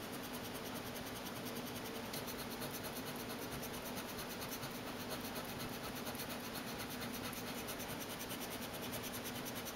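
Faint scratching of a Pilot Frixion gel pen on a sheet of paper, over a steady low hum.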